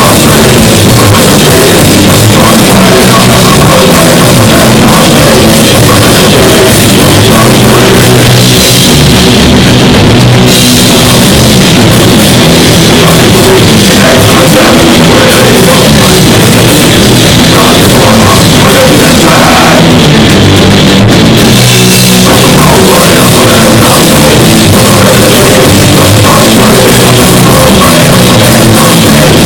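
A loud rock band playing live with a full drum kit, in a heavy, punk-like style, recorded close to full level.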